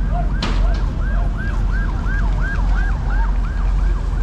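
Emergency vehicle siren in a fast yelp, rapid rising-and-falling sweeps about four a second, over a steady low rumble, with one sharp click about half a second in.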